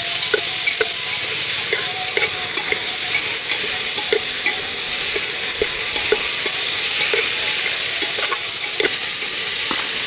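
Mixed vegetables (cauliflower, capsicum, green chilli and green peas) sizzling in hot ghee in an open pressure cooker as they are stirred, with short scraping knocks against the pot every second or so.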